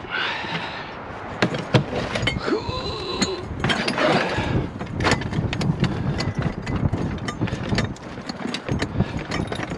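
Scrap metal being handled and sorted: a dense run of clinks, knocks and rattles, with a short metallic ring about three seconds in.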